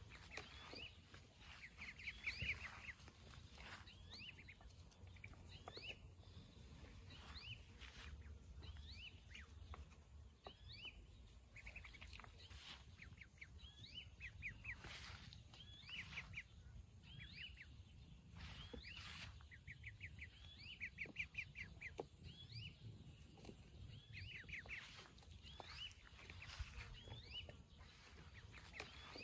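Ducklings peeping: soft runs of quick, high chirps that come in bursts every few seconds, over a faint low rumble.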